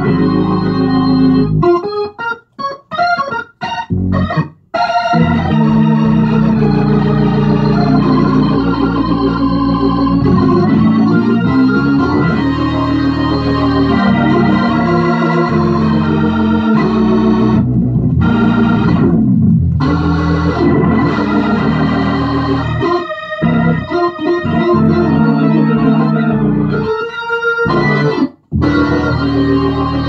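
Organ played through a freshly refurbished Leslie 147 amplifier and speaker cabinet: a run of short, detached chords in the first few seconds, then held chords with changing harmony, broken by a few brief pauses.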